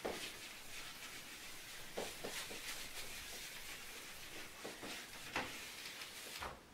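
Handheld whiteboard eraser wiping across a whiteboard: a steady soft rubbing, with a few slightly louder strokes.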